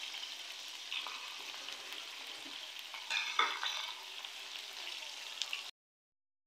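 Chicken pieces frying in oil in a metal karahi: a steady sizzle, briefly louder about three seconds in. It cuts off abruptly near the end.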